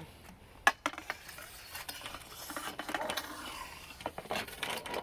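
Aluminium pool pole knocking and scraping against the concrete pool edge as it is worked in the water, with a sharp knock less than a second in.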